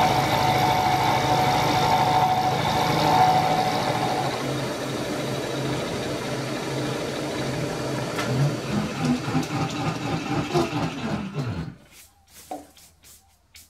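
Bridgeport-style milling machine taking a finishing cut across an aluminium plate with an indexable tip cutter: steady machine noise with a singing cutting tone that stops about four seconds in. From about eight seconds the machine's note falls in pitch, then the sound cuts off sharply near the end and a few light clicks follow.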